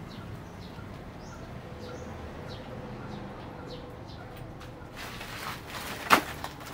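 Yorkshire terrier rummaging through a pile of plastic sacks and bottles. Faint scratches and rustles give way about five seconds in to louder crinkling of the sacks, with one sharp knock about a second later.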